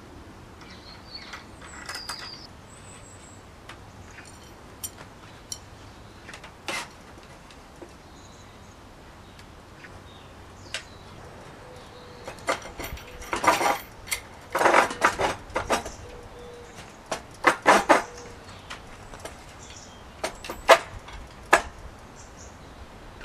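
Metal rails and wooden frame of a homemade chainsaw-mill rig being handled and fixed in place: scattered clicks and knocks, a run of louder metallic rattling and scraping in the middle, and a few sharp clicks near the end as the threaded rod and wing-nuts are fitted.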